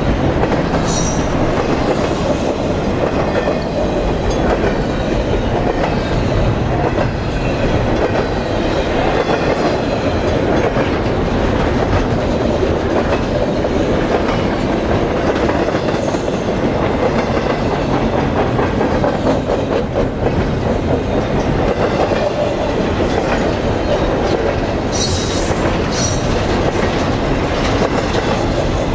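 Double-stack container well cars of a freight train rolling past: a steady, loud rumble and clatter of steel wheels on the rails. A few brief high-pitched wheel squeals come about a second in, near the middle, and twice near the end.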